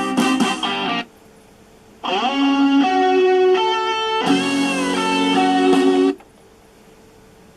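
Guitar music played from a CD through an Aiwa CDS-A190 portable boombox's speakers, in two short snippets: the first stops about a second in, and the second starts about a second later and cuts off abruptly about four seconds after that.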